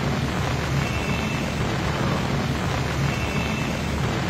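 Heavy rain falling in a steady rushing hiss, with a low rumble underneath.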